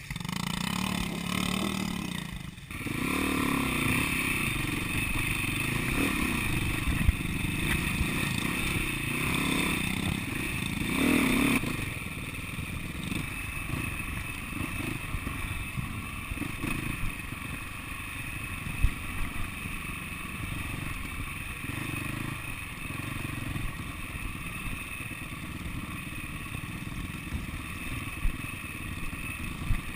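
Off-road motorcycle engines running at low trail speed, the nearest an SWM 300RS single-cylinder four-stroke, with a Yamaha TT-R90 ahead, and the bike clattering over rough ground. The engine sound is louder for the first dozen seconds, then drops to a lower, steadier run with occasional knocks.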